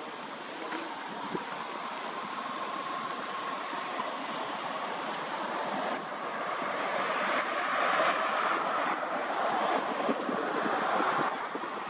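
Steady rushing outdoor noise, like wind through tree leaves, swelling about halfway in and easing near the end.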